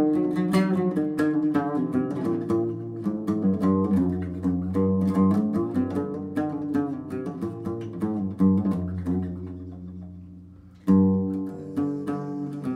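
Instrumental background music: quick plucked-string notes over a held low bass line. It fades down, then a new phrase starts loudly about eleven seconds in.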